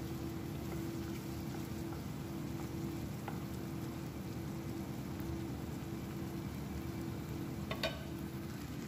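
Thick sauce simmering in a pan on the stove: a steady low bubbling hiss with a constant hum underneath. A light click near the end.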